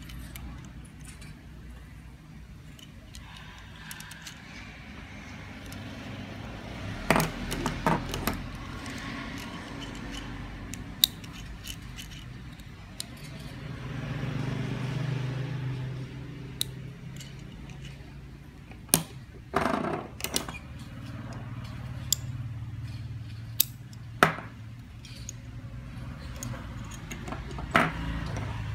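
Metal carabiners being handled, clinking and clicking against each other and the table in scattered sharp clicks, over a steady low rumble in the background.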